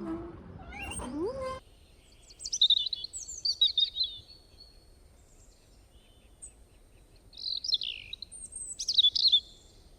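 A songbird singing: two bursts of quick high chirps and falling notes, a few seconds apart.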